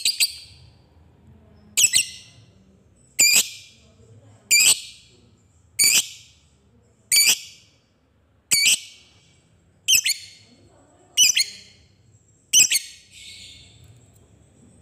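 Lovebird giving nine short, sharp single calls, evenly spaced about one every 1.3 seconds. This is the 'ngetik' ticking call that lovebird keepers use as a prompt to set other lovebirds calling.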